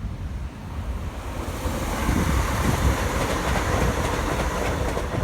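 Class 170 Turbostar diesel multiple unit passing. Its rumble and rail noise build about a second and a half in and then hold, with wind buffeting the microphone.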